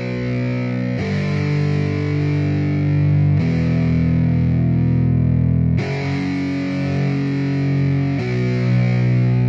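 Background music: distorted electric guitar chords held and changing every couple of seconds, as the intro to a rock-rap track.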